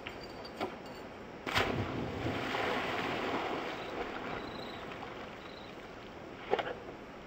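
A dog jumps off a wooden dock and splashes into a pond about a second and a half in, then churns the water as it swims, the splashing slowly fading. A short sharp sound comes near the end.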